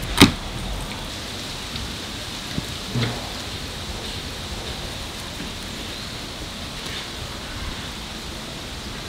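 A metal latch on an iKamper hard-shell rooftop tent clicks open sharply just after the start, over a steady hiss of rain; a soft knock follows about three seconds in as the tent shell lifts.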